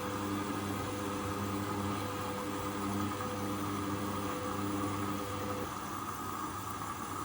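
Hoover Custom Vision washing machine running, its motor humming with a steady hiss underneath; the hum drops away about three-quarters of the way through, leaving the hiss.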